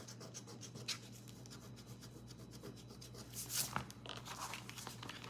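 Faint rubbing and scratching of a fingernail on a paper scratch-off savings-challenge card, with a few light taps and rustles.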